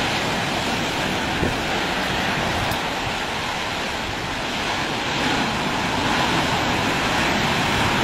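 Heavy storm surf breaking on the shore with strong wind blowing over the microphone: a steady rushing noise that grows a little louder about five seconds in.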